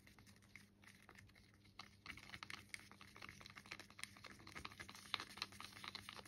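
Faint, irregular clicking and scraping of a stir stick against the sides of a plastic cup as pink acrylic paint and Floetrol pouring medium are stirred together, growing busier about two seconds in.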